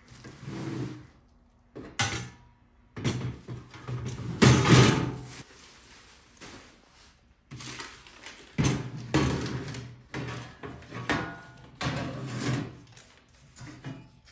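Irregular knocks, scrapes and rustles of boxed parts and packaging being handled during unboxing, loudest about four to five seconds in.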